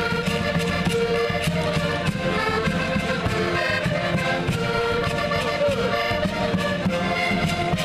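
A Portuguese folk band of diatonic button accordions (concertinas) playing a tune together, with a bass drum beaten in a steady rhythm underneath.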